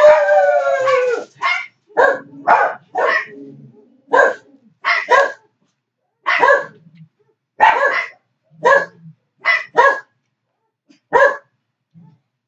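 A dog barking loudly and repeatedly: one longer, drawn-out call at the start, then about a dozen short, sharp barks at uneven intervals.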